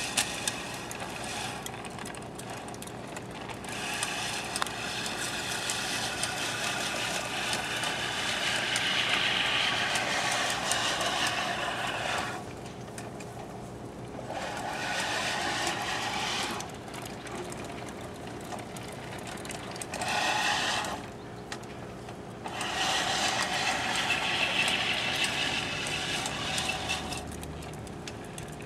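Manual push reel mower whirring as its spinning blades cut grass, stopping and starting several times as it is pushed in passes.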